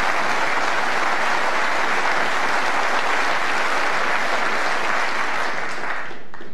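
Snooker audience applauding a successful escape from a snooker, the clapping dying away near the end.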